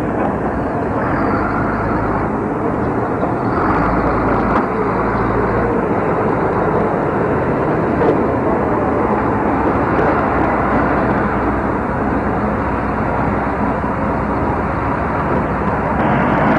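Vehicle engines running loudly and steadily, a continuous rough noise without a break.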